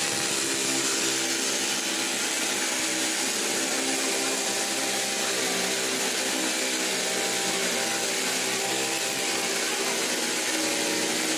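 Corded electric jigsaw running steadily, its blade cutting a curve through white laminate-faced particleboard.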